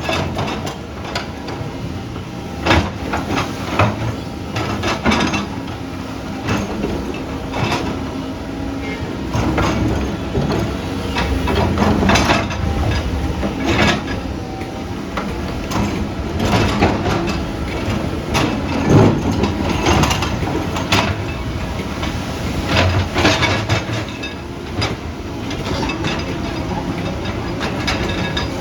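Tracked earthmoving machine at work: a steady diesel rumble with frequent metallic clanks and knocks.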